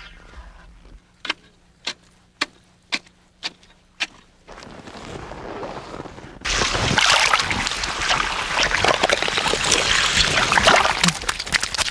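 A fishing net being hauled up through a hole in lake ice, with water splashing and sloshing loudly from about halfway through. Before that come six sharp crunches or knocks, about half a second apart.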